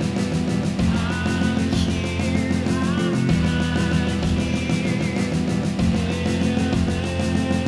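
Rock band recording playing: electric guitars with gliding, bending high notes over bass and a steady drum beat.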